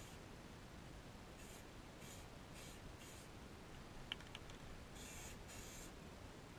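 Aerosol spray-paint can hissing in short bursts of a fraction of a second each, about half a dozen in all, with a pause in the middle broken by one small click.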